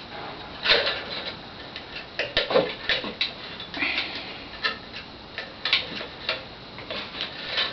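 Wire being threaded through the holes in a wooden beehive frame: irregular light ticks and scrapes of the wire and frame being handled.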